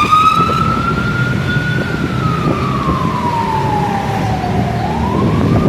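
A siren wailing in one slow cycle. Its pitch climbs, sinks gradually over about three seconds, and starts climbing again near the end, over a steady low rumble of noise.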